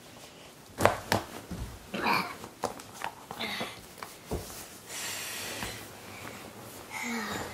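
Knocks and thumps, then rustling of bedding, as a child climbs onto a wooden-framed bed holding books. There are sharp knocks about a second in and a steady rustle about five seconds in.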